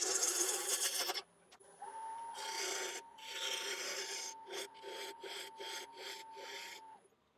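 Turning tool cutting the outside of a spinning ash blank on a wood lathe: one continuous scraping cut, a short pause, then two longer passes and a run of short strokes about twice a second, taking off the last flat spots to bring the piece round. The cutting and a faint steady whine stop abruptly about seven seconds in.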